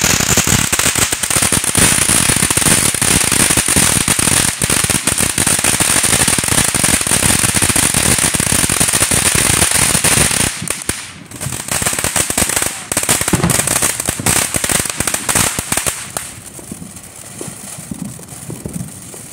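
Ground fountain firework spraying sparks with a dense, continuous crackle and a high hiss. About sixteen seconds in the crackle drops and thins out as the fountain dies down.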